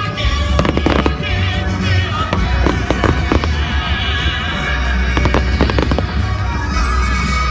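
Fireworks going off in repeated sharp bangs and crackles over music playing.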